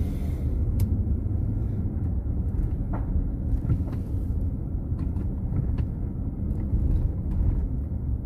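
Steady low rumble of a GMC Yukon XL on the move, with a few faint, irregular clicks.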